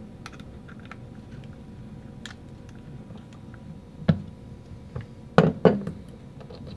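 Small screwdriver clicks and ticks as a screw is backed out of a paintball marker's feed housing, with a sharper knock about four seconds in and two louder knocks around five and a half seconds.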